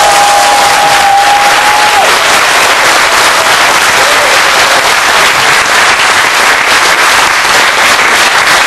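Audience clapping and cheering loudly and steadily, with one long held cry over it for the first two seconds.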